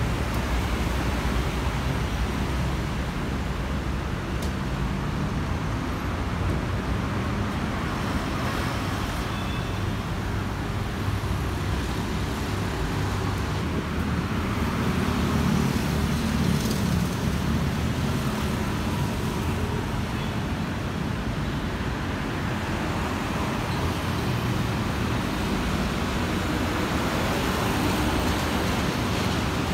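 Road traffic: a steady wash of car and motorbike engines and tyre noise, swelling louder for a few seconds about halfway through.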